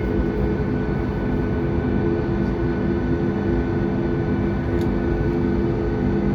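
Boeing 737 MAX 8's CFM LEAP-1B turbofan engines running steadily, heard inside the cabin as a constant rumble with a steady hum of several tones.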